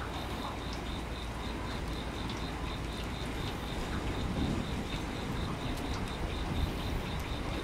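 An insect chirping steadily: a high pulsing call repeating about four times a second, over a low rumble of background noise.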